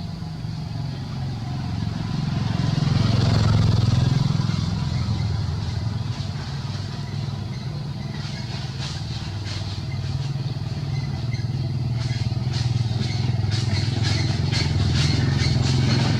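A motor engine running steadily, swelling and easing in loudness, with a series of irregular sharp clicks in the second half.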